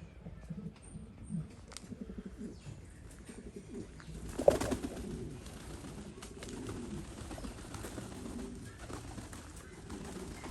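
Several Syrian (Shami) domestic pigeons cooing, low repeated coos overlapping throughout, with one sharp knock about halfway through.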